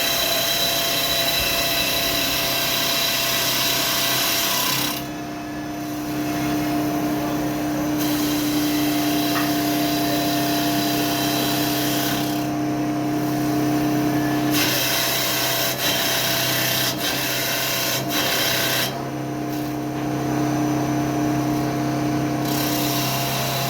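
CNC wood lathe turning wood: a dense hiss of the cutter shaving the spinning workpiece over a steady motor hum. The cutting hiss drops away three times for a few seconds while a steady hum tone carries on, and there are a few sharp clicks in between.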